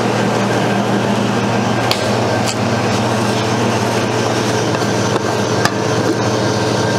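Soft-serve ice cream machine running with a steady hum while its topping wash cycle pushes water through the topping line. A few light clicks and taps come about two seconds in and again later on.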